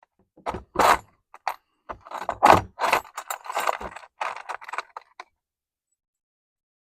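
Irregular rattling and scraping as deer-feeder parts are handled, in a run of short clatters that stops about five seconds in.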